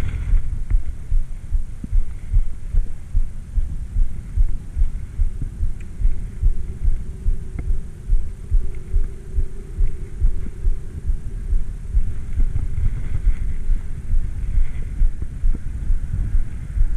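Steady low thumping, about two beats a second, with a faint hum swelling in the middle.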